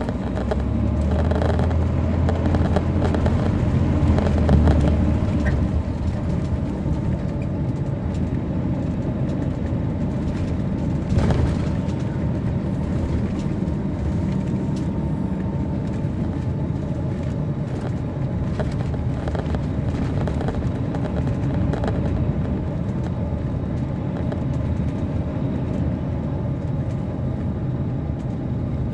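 Inside a moving 2007 MCI D4500CL coach: its Caterpillar C13 ACERT inline-six diesel runs with road and cabin noise. The engine drone is heaviest in the first five seconds, then eases to a steady cruise. A single sharp knock comes about eleven seconds in.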